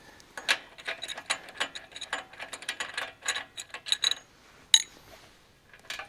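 Ratchet wrench clicking rapidly as it backs out the spark plug of a small pump engine, followed by a couple of single sharp clicks near the end.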